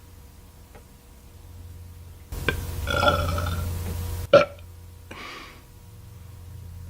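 A woman belching: one long, drawn-out burp lasting about two seconds, then a short, sharp burp right after it.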